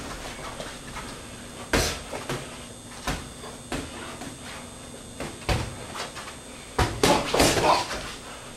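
Boxing gloves landing punches during sparring, a sharp thud at a time: single blows spread out over the first six seconds, then a quick flurry of several punches near the end.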